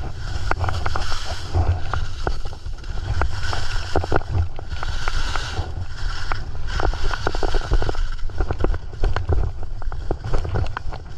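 Skis sliding and carving on snow, with a hiss that swells about every two seconds as the edges bite through the turns and scattered clicks and knocks of the gear. Heavy wind buffets the GoPro's microphone underneath.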